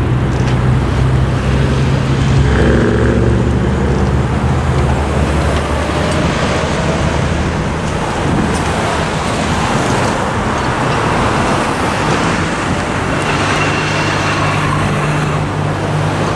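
Road traffic: cars and pickup trucks pulling away and driving over a railroad crossing, engines running with tyre noise. A low engine hum is heard at the start and again near the end.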